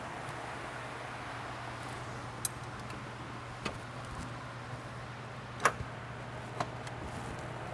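A few scattered sharp clicks and knocks of hand tools against metal parts in a car's engine bay, the loudest about three-quarters of the way through, over a steady low hum.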